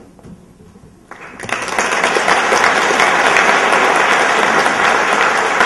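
Audience applause, starting about a second in and swelling quickly to a steady clapping.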